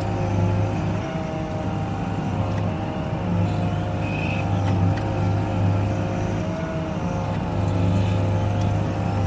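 Hydraulic excavator running under load, heard from inside the cab: a steady low diesel engine hum with a hydraulic whine that shifts slightly in pitch as the boom and bucket move snow. A brief high squeak sounds about four seconds in.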